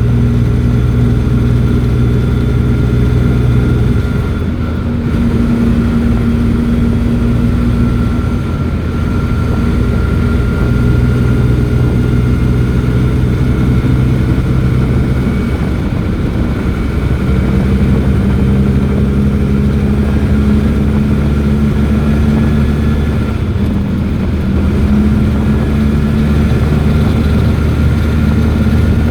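Invacar's small engine running as the car drives along, a noisy, steady drone whose pitch shifts about four seconds in and again around seventeen seconds.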